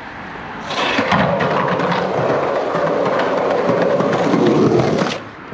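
Skateboard wheels rolling fast over rough pavement, a loud gritty rumble full of small clicks that starts about a second in and cuts off suddenly near the end as the board leaves the ground.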